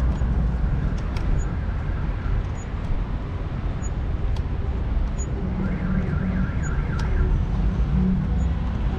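Street traffic with a steady low rumble of wind on the microphone while riding a bicycle. Just past the middle, a pulsing tone sounds for about a second and a half.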